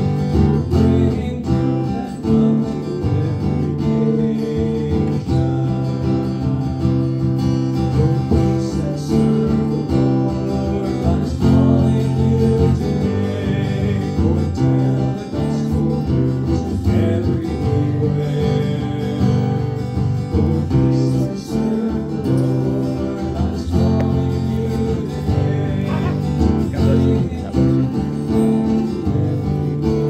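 Acoustic guitar playing steady strummed chords of a closing song, with no voice.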